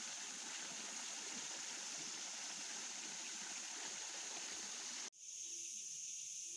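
Small rocky mountain stream running, a steady rush of water. It cuts off abruptly about five seconds in, leaving only a quieter steady high-pitched drone.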